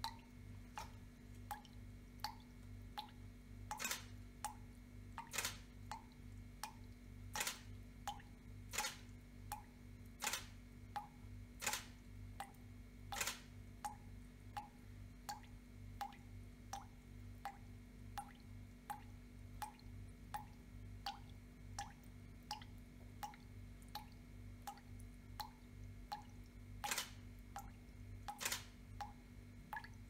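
Tap dripping steadily into a sink full of water, a small plop about twice a second. Louder sharp clicks of a camera shutter come in a run of seven, one every second and a half or so, and then twice more near the end. A faint low hum runs underneath.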